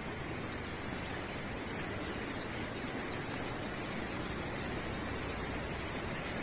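Outdoor ambience of insects, likely crickets, chirring as a steady high-pitched band over an even background hiss.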